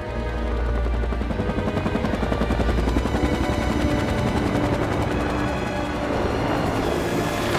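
Rotor blades of a formation of Bell UH-1 Huey helicopters chopping in a fast, steady rhythm, mixed with a low, held film-score drone.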